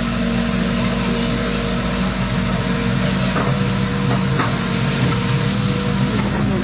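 Engine running steadily at an even pace: a continuous low hum with no change in speed.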